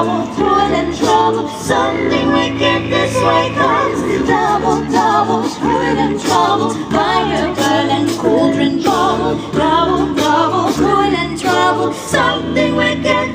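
A small a cappella group of mixed female and male voices singing in close harmony. Held low bass notes sit under a moving upper melody.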